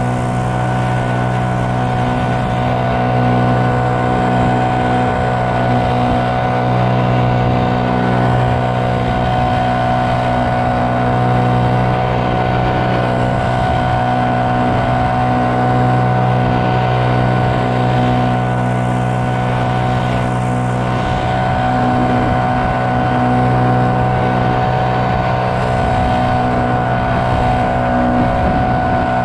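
Leaf blower engine running steadily at a constant high speed, blowing mown grass clippings off the road edge.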